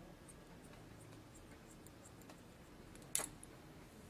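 Quiet, light snipping of Sayuri dry finish hair shears point cutting into a lifted section of hair, with one sharper click a little over three seconds in.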